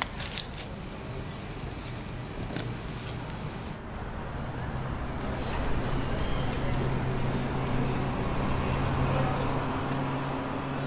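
Street ambience: traffic noise with a motor vehicle's low engine hum that grows louder about halfway through, and faint voices of passers-by.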